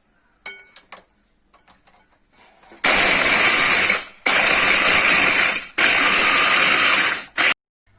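Electric grinder pulsing biscuits into coarse crumbs: a few light clicks, then three loud bursts of grinding of a second or so each and a short fourth one.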